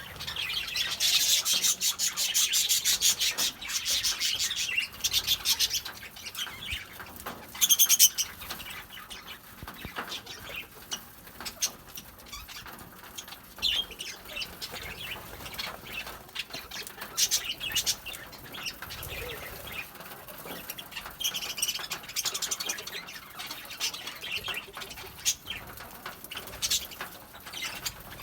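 Lovebirds chattering: a dense run of rapid, shrill chirps and squawks, loudest over the first few seconds, then in shorter bursts with quieter chatter between.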